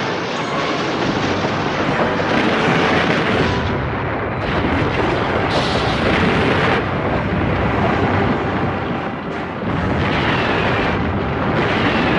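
Toho film explosion sound effects: a dense, continuous wall of blasts and rumbling, dipping slightly a little after nine seconds before building again.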